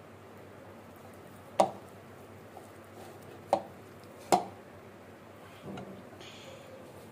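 Hands kneading dough in a dimpled mixing bowl, knocking sharply against the bowl three times, with a softer thud later.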